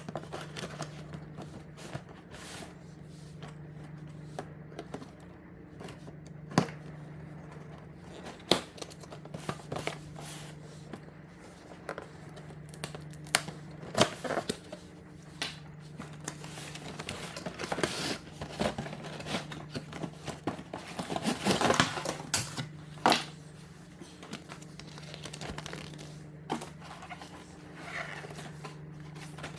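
Toy robot packaging being handled and opened: crinkling and rustling with scattered sharp clicks and taps, and a longer spell of crinkling about 21 seconds in. A steady low hum runs underneath.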